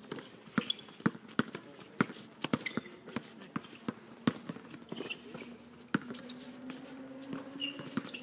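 Basketball bouncing as it is dribbled on a hard court: sharp single bounces about every half second, unevenly spaced.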